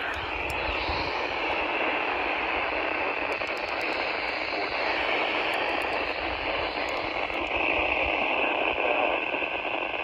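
American Red Cross emergency weather radio's speaker giving a steady hiss of static, tuned to a weather-band channel during a severe thunderstorm alert.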